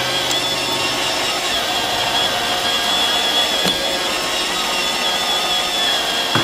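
iRobot Roomba robot vacuum running: a steady mechanical whir with a high, constant whine over it.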